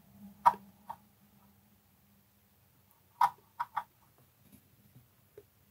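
A few light clicks and taps of small paint pots and a brush being handled: two about half a second apart near the start, then a quick run of three a little past halfway.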